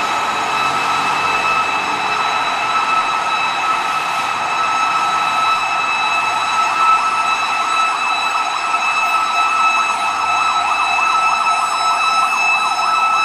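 Ambulance siren sounding continuously, a fast warbling yelp over a steady high tone, with road traffic beneath.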